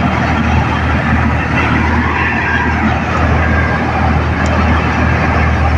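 New Holland 8070 rice combine harvester running steadily under power: a constant low engine drone under a dense, loud machinery noise.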